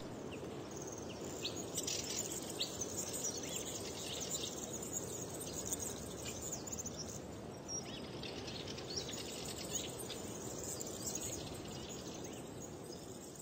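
Outdoor nature ambience: a steady background hush with many short, scattered bird chirps, getting slowly quieter near the end.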